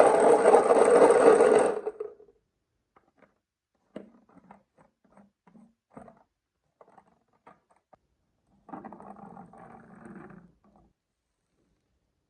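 Marbles rattling loudly down a wooden marble run for about two seconds, then a run of separate light clicks as marbles knock on the wooden track, and a quieter rolling rattle near the end.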